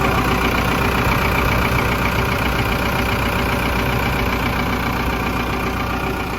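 Komatsu PC130-6E excavator's S4D102E four-cylinder diesel engine idling steadily.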